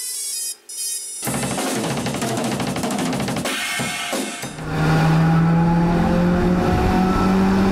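Intro music: a few short electronic tones, then a full drum kit with cymbals comes in about a second in, and held notes join about halfway through.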